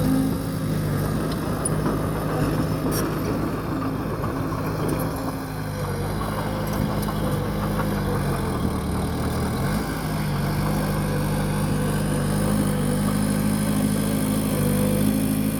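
Bulldozer's diesel engine running steadily, its pitch dropping about eight seconds in and rising back about two seconds later.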